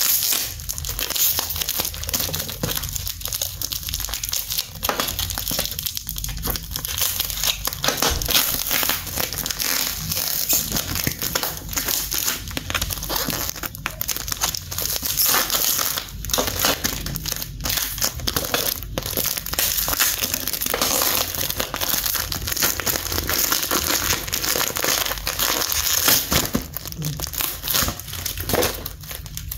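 Heavily glued cardboard carton being torn open by hand: a steady run of ripping and crackling cardboard and crinkling packaging, with many small sharp snaps.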